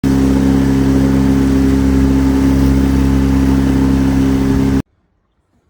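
Engine running steadily at constant speed, a loud even hum that starts suddenly and cuts off suddenly just under five seconds in.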